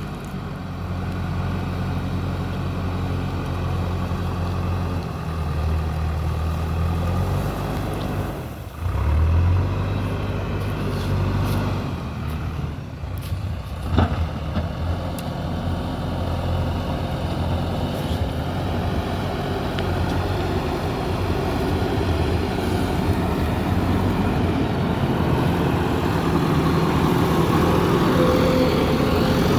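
JCB 3DX backhoe loader's diesel engine running steadily, its pitch and load shifting as the machine works, with a few sharp metallic knocks a little before halfway, the loudest about 14 seconds in.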